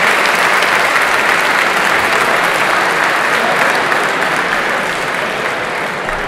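Audience applauding, a dense steady clapping that slowly tapers off near the end.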